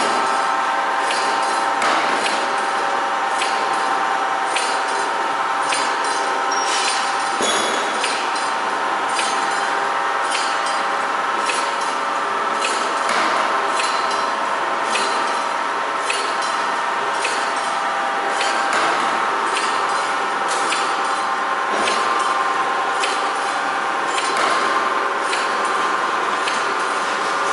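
CNC spring coiling machine forming rectangular compression springs from stainless steel wire: a steady whine of several pitches with quick metallic clicks and ticks throughout. A louder knock comes about every five and a half seconds.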